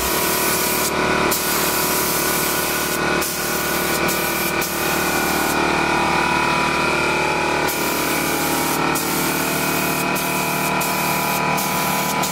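Harbor Freight gravity-feed paint spray gun spraying: a steady hiss of air and atomised paint, broken by several brief pauses as the trigger is let off between passes. Steady tones run beneath it.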